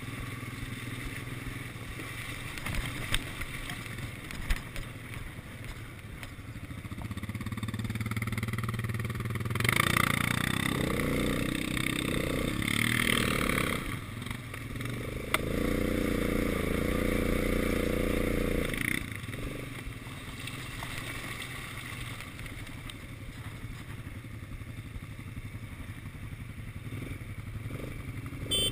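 Quad bike engine running over a rough dirt track, pulling louder through the middle stretch and then dropping back to a lower, steadier note as the bike slows behind another quad. A few sharp knocks sound early on and once in the middle.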